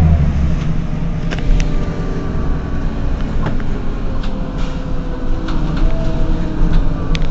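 Heuliez GX 127 city bus engine idling at a stop: a steady low rumble, a little louder at first, with a few light clicks over it.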